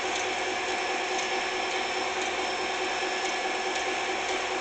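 Small electric motor and gearbox of a battery-powered toy train whirring steadily, with faint light ticks about twice a second.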